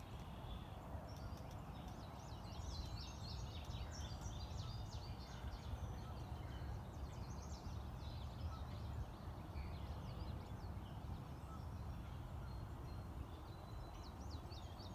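Small songbirds chirping and trilling: many quick high notes through most of the stretch, thinning out in the middle, over a steady low rumble.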